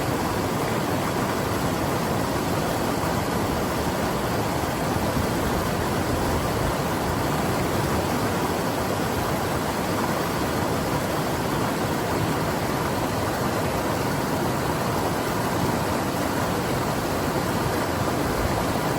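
Steady rushing of the North Umpqua, a fast mountain river, running over rocks.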